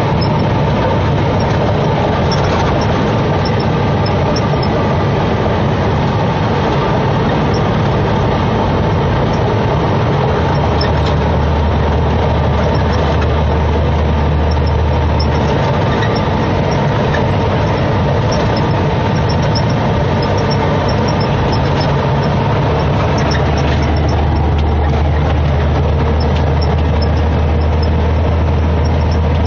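Semi truck's diesel engine running at road speed with road and cab noise, heard from inside the cab. A deeper low drone swells in about ten seconds in for some five seconds, and again from about twenty-three seconds on.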